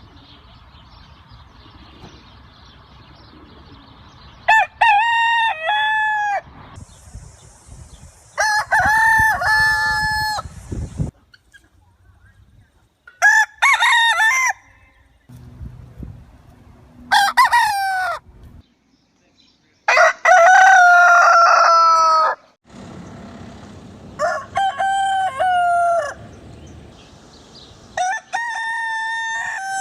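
Roosters crowing: about seven separate cock-a-doodle-doo crows, each lasting one and a half to two and a half seconds and ending in a falling drawn-out note, with a few seconds between them.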